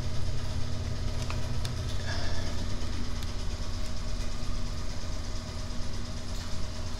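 A steady low mechanical hum, with a couple of faint clicks a little over a second in.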